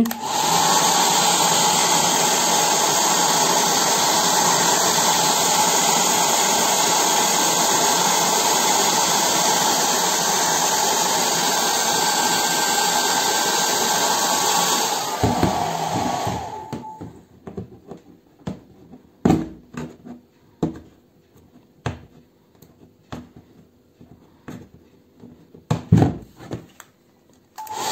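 Small handheld hair dryer running steadily on full heat with a high whine, heating luggage-sticker glue to soften it; it is switched off about halfway through and winds down. After that come scattered small clicks and scrapes of fingers peeling loosened paper stickers.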